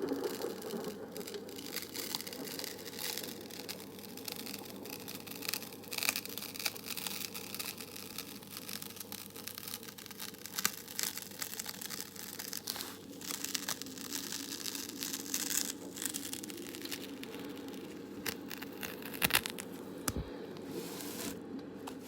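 Close-miked ASMR sounds: irregular crinkling and crackling strokes over a steady background hiss, with a couple of sharper louder clicks near the end.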